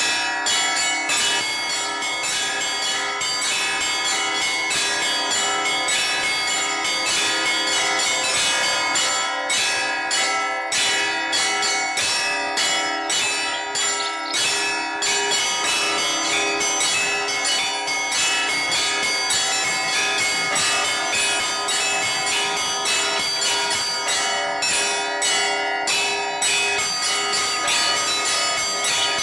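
Orthodox church bells rung in a continuous peal: several bells of different pitches struck in a quick, steady rhythm over their own lingering ringing tones.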